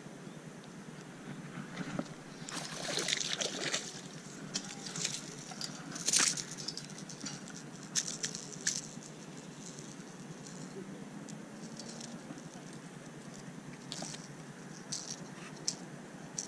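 Sleeve brushing and knocking against a chest-mounted action camera: irregular rustles and clicks close to the microphone, the loudest knock about six seconds in.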